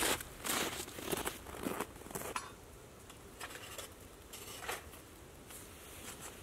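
Footsteps crunching in snow: a few steps about half a second apart in the first couple of seconds, then fainter scattered crunches and rustling.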